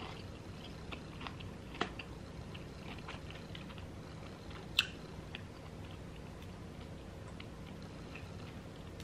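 Close-miked chewing and soft mouth clicks of a person eating, with a sharper click about five seconds in.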